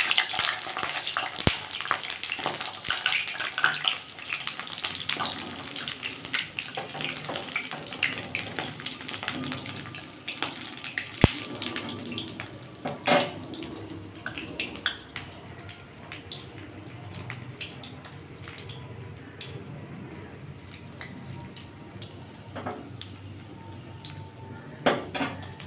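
Battered raw-papaya pakoras deep-frying in hot oil in a steel kadai: a dense crackling sizzle that thins out in the second half. A few sharp metal clinks come from the slotted spoon against the pan, the loudest about 13 seconds in and another near the end.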